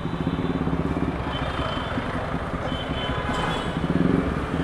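Motorcycle engine running steadily at low revs, with an even, fast pulsing beat.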